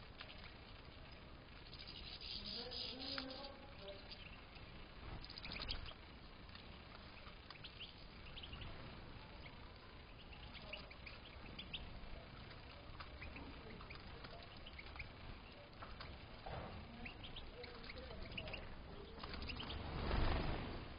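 European goldfinches in an aviary giving scattered short chirps and twittering calls. Near the end comes a brief, louder rustling burst.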